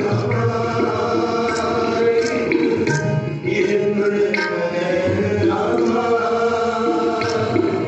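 Sikh kirtan: voices singing a Gurbani shabad together in a chanting style, with occasional tabla strokes.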